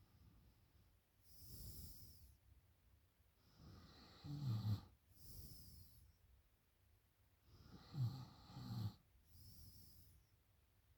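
A sleeping woman snoring: two rattling snores about four seconds apart, each followed by a breathy exhale, in a slow, regular breathing rhythm.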